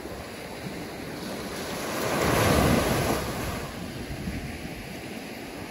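Ocean surf washing onto a beach, with wind buffeting the microphone; a wave swells up and breaks about two seconds in, then the wash eases off.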